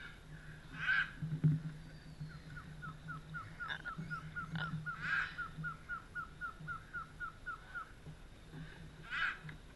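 Scarlet macaws giving a few harsh squawks: about a second in, around the middle and near the end. A bird repeats a short falling note about four times a second for several seconds.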